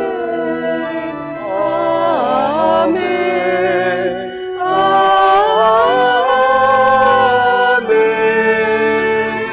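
Church choir singing a Tagalog hymn off key over organ accompaniment, the voices wavering and sliding in pitch.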